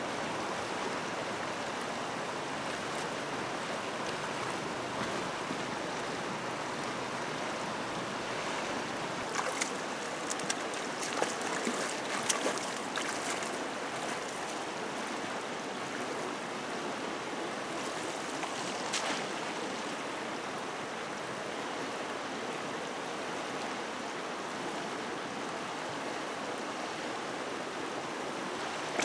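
Fast-flowing muddy river rushing steadily around someone wading, with a handful of sharp splashes about a third of the way in and again past the middle.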